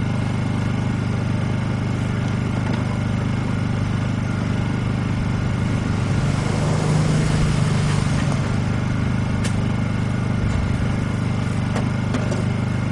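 Honda EU2000i inverter generator's single-cylinder four-stroke engine running steadily in eco-throttle mode with no load, a steady hum with a slight swell about six to eight seconds in.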